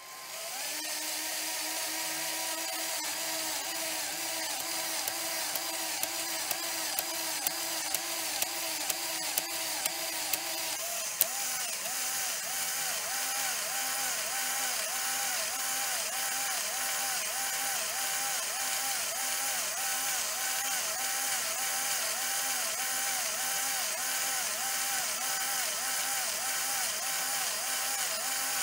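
Small electric motor in a LEGO Technic model driving the pneumatic pump through plastic gears: a steady whine with a regular pulsing. There are sharp ticks about twice a second in the first ten seconds, and around eleven seconds in the pitch drops slightly and the pulsing becomes more pronounced.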